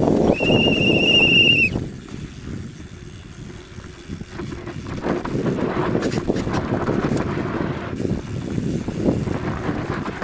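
Downhill mountain bike rattling and rolling fast over a rough dirt trail, with tyre, chain and frame clatter. About half a second in comes a steady high-pitched brake squeal lasting about a second.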